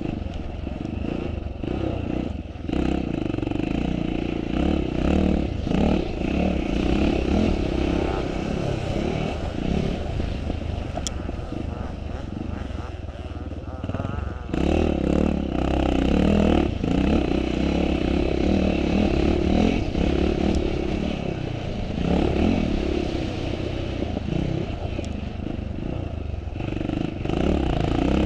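Classic motocross motorcycle engine running hard, its revs and loudness rising and falling again and again as the bike is ridden, with a dip about two and a half seconds in and another about halfway through.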